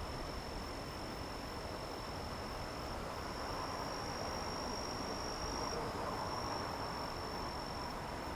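A cricket trilling continuously on one high, steady pitch, over a steady rushing background noise.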